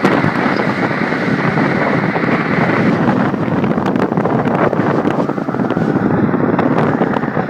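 Strong wind blowing hard and buffeting the microphone, a loud, steady rush with small surges.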